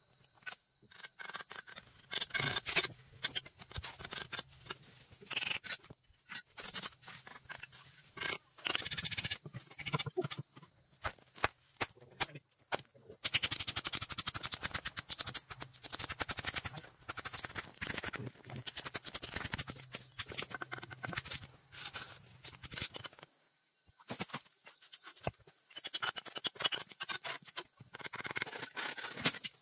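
Masonry work: many sharp, irregular clinks and knocks of hammers chipping bricks and stone, and of a trowel tapping bricks into place. The strikes come thickest in a long run through the middle.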